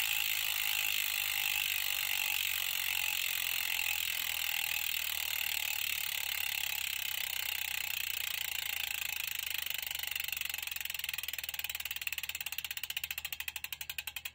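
Mountain bike rear freehub buzzing with very fast clicks as the wheel spins freely. Near the end the clicks slow and spread out into separate ticks as the wheel winds down.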